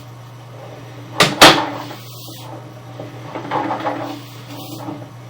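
Two sharp knocks in quick succession about a second in, over a steady low electrical hum, with softer scraping swells later on, from drain-inspection camera gear.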